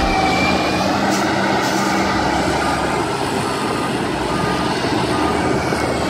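Diesel engines of heavy earthmoving machines, a wheel tractor-scraper and a motor grader, running steadily: a dense, even rumble with a faint steady tone through it.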